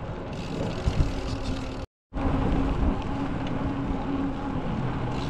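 Wind rushing over the microphone of a camera on a moving bicycle, with low road rumble and a faint steady hum. The sound drops out for a moment about two seconds in.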